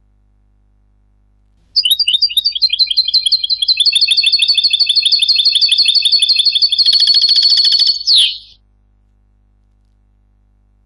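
Recorded European goldfinch song played back: a rapid run of short high repeated notes for about seven seconds, growing into a dense rattling trill near the end and closing with a quick falling note. The background between and around the notes is clean, the noise having been filtered out of the recording.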